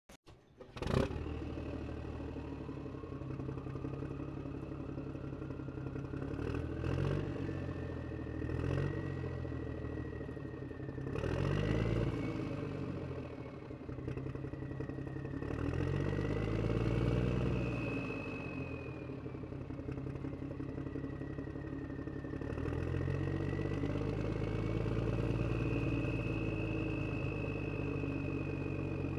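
A vehicle engine running, its revs rising and falling every few seconds, with a high whine over it that climbs soon after the start and then wavers. It begins suddenly about a second in.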